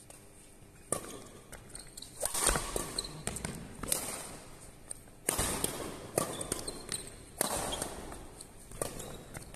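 Badminton doubles rally in a large hall: rackets strike the shuttlecock about seven times, roughly once every second or so, each hit sharp and echoing. Players' footsteps and shuffling shoes fill the gaps between hits.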